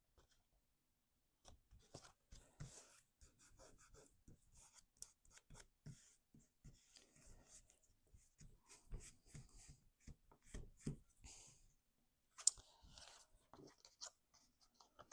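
Faint rustling, scraping and tapping of cardstock being handled and folded by hand, with a sharper click about twelve and a half seconds in.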